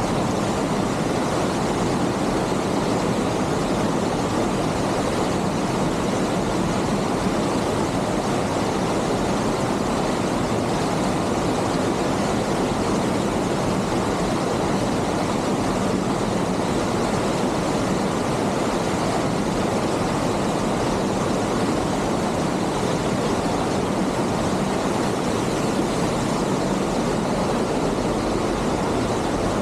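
Waterfall pouring steadily, a constant rushing of water that stays level throughout.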